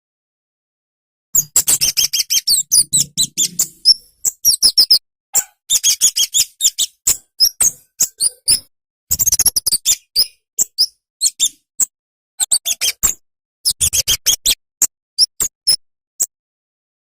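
A kemade, a small flowerpecker known as cabe-cabean, singing in quick runs of sharp, high twittering chirps broken by short pauses. The song starts about a second in.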